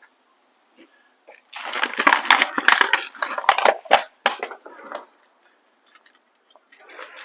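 Hands rummaging through small parts and packaging: about two and a half seconds of dense rustling and clattering with sharp clicks, then a few scattered clicks.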